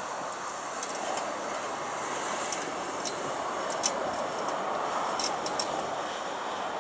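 Jet engine noise from a four-engined Airbus A380 on its take-off run, a steady rushing roar with scattered sharp clicks over it.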